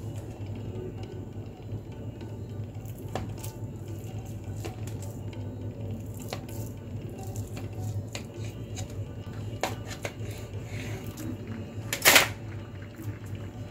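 Kitchen knife slicing through a milk cake on a plate, with a few faint clicks as the blade meets the plate, over a steady low hum. About twelve seconds in comes one louder, sharp clatter.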